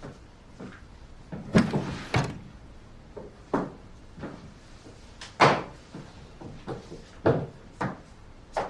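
Door sounds: a string of separate knocks and clunks, as a door is opened, pushed and shut. The loudest come about one and a half, two and five and a half seconds in.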